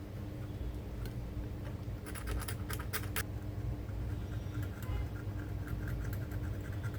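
A tool scratching the coating off a laptop motherboard's surface to bare a larger ground area, in short scraping strokes. The strokes come in clusters about two and three seconds in, then as a run of fine rapid ticks.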